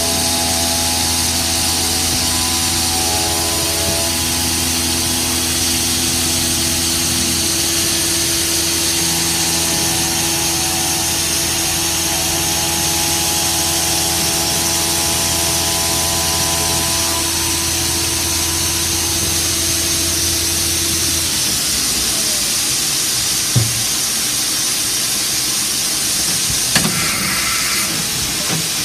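CNC milling machine cutting a linen phenolic part with an end mill, its motors humming in several steady tones over a constant hiss. About 21 seconds in the motor tones stop, leaving the hiss, and two sharp knocks follow later.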